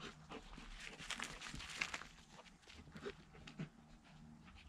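Vizsla puppy and goldendoodle play-wrestling: panting with irregular scuffles and rustles on grass.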